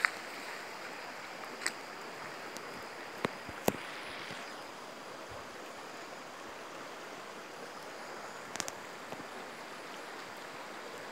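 Steady flowing of a shallow stream, with a few brief sharp clicks scattered through it, the loudest pair about three and a half seconds in.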